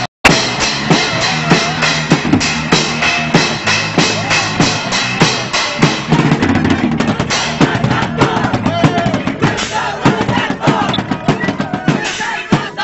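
Hardcore punk band playing live at high volume: pounding drum kit with bass drum and snare under distorted electric guitar, recorded close up on an old camcorder. The sound cuts out completely for a moment just after the start.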